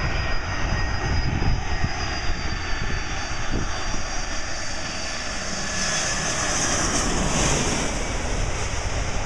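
Four-engine KLM Boeing 747 jet on final approach, its engines making a steady, loud noise. The high-pitched hiss swells about six to eight seconds in as the jet passes low overhead.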